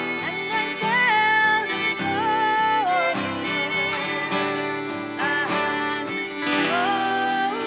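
A woman singing a slow folk melody in long held notes that slide between pitches, with an acoustic guitar accompanying her.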